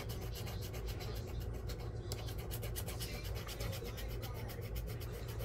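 Steady electrical hum with fast, even crackling from a microphone whose battery is running out.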